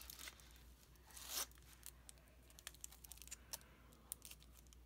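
Faint rustling and crinkling of clear plastic wrapping as a small wrapped item is picked up and handled, with a short louder rustle about a second in and a few light clicks.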